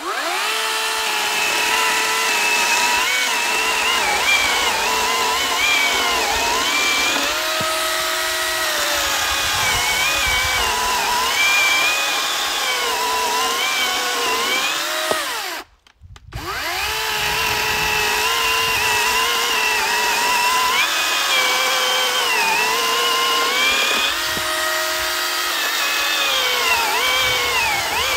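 Cordless battery electric chainsaw cutting through a log, its motor whine dipping and rising as the chain bites into the wood. Around the middle it stops abruptly for about half a second, then starts up again and carries on cutting.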